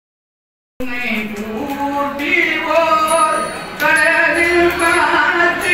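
Voices chanting mantras at a yaga puja fire ritual, held notes moving in steps of pitch, starting abruptly about a second in.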